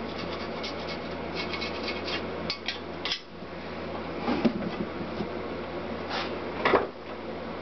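A sharp hand scraper scraping old gasket material off the aluminium cylinder deck of a Honda CX500 engine block: a run of short scraping strokes, metal on metal, with a few louder strokes around the middle and near the end.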